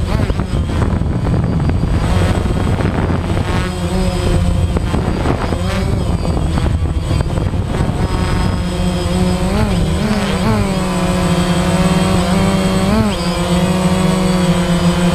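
DJI Phantom quadcopter's propellers and motors buzzing loudly and steadily. In the second half the pitch rises and dips several times as the motors change speed to manoeuvre.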